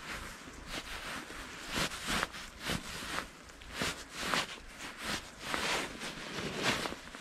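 Irregular rustling and scraping close to the microphone: jacket fabric shifting and snow crunching as the wearer of a chest-mounted camera moves, over a steady hiss.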